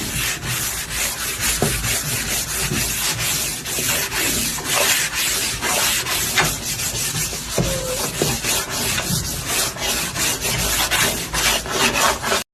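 Loud, continuous scratching and rubbing right at the microphone, dense with small clicks, stopping abruptly near the end.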